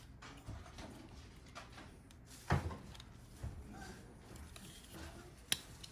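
Faint handling noise of a hard drive being set into a plastic tool-less NAS drive tray, with a knock about two and a half seconds in and a sharp click near the end.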